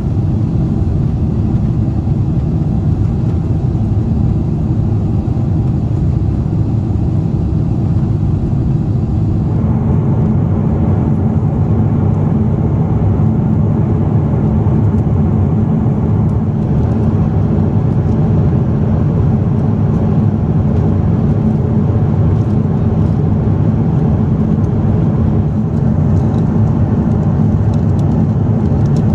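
Steady low cabin noise of a Boeing 747-8 airliner in cruise, the engines and airflow heard from inside the cabin. About ten seconds in, the sound has slightly less hiss.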